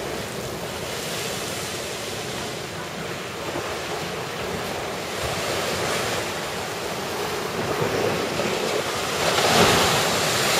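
Rough sea surf breaking against a stone seawall, with wind on the microphone. The surf grows louder near the end as a bigger wave breaks and throws spray over the wall.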